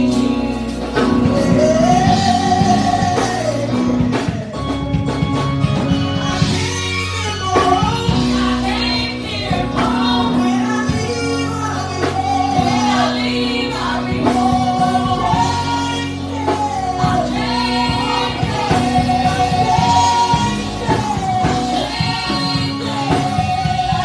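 Gospel worship music: voices singing a melody over a band with bass and drums.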